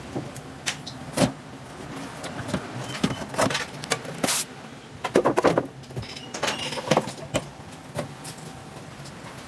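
Metal rack-mount unit being pulled out of and pushed back into a flight-case equipment rack: scattered clicks and knocks of metal on metal, a short scrape about four seconds in, and a burst of clatter just after.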